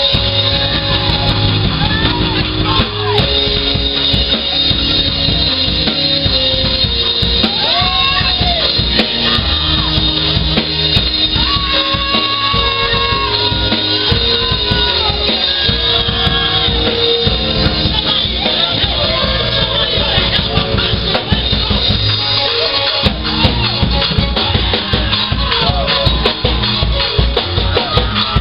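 Live church music with a steady drum-kit beat, bass and guitar, and voices singing long held notes over it.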